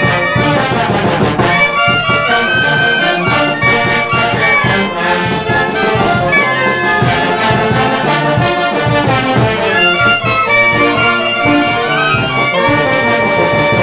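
Peruvian street brass band playing: trumpets, trombones, saxophones and clarinets over tuba, with bass drum, snare drum and hand cymbals keeping a steady beat.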